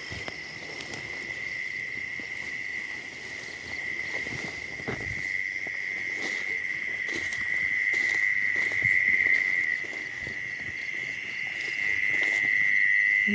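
Insects trilling: one steady, unbroken high-pitched note that grows louder in the second half.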